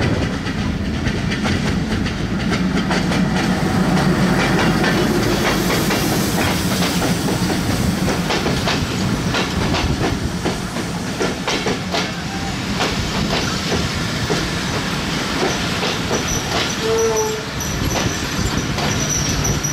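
Diesel-hauled express passenger train running past close by: the locomotive's engine hum comes first, then the coaches roll by with wheels clacking over the rail joints.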